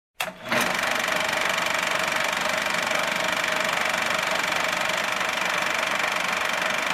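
Steady mechanical whirring with a fast, even clatter and a faint high hum, starting with a short click-and-catch about half a second in: a machine-running sound effect.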